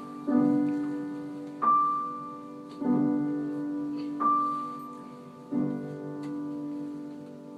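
Slow piano music: a low chord and a high note struck in turn, about every 1.3 seconds, each ringing and fading.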